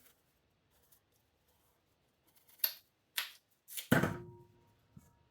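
A large kitchen knife cutting raw potato: a few sharp slicing strokes, then a heavy knock about four seconds in with a short metallic ring after it.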